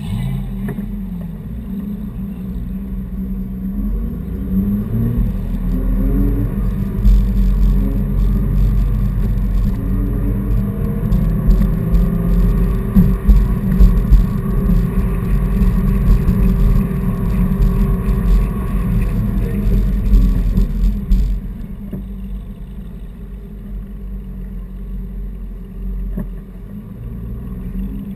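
Sports car engine running in slow city traffic, its pitch rising and falling as it pulls away and eases off several times. It is loudest through the middle stretch and drops to a lower, steady run about twenty-one seconds in.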